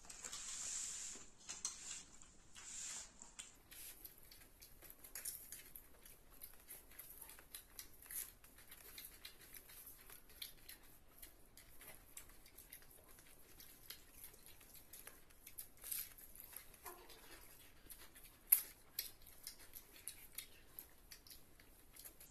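Faint eating sounds from a meal of rice and fish curry eaten by hand from a steel plate: scattered soft clicks and smacks, with one sharper click well past the middle.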